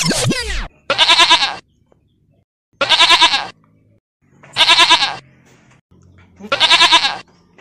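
A quick falling swoosh at the start, then a goat bleating four times, about two seconds apart, each bleat a short wavering cry.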